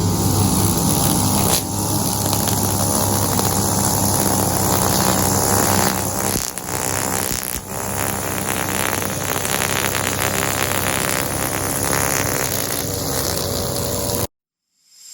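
Push lawn mower engine running steadily while cutting wet grass, with two brief dips in level about six and a half and seven and a half seconds in. The sound cuts off abruptly near the end.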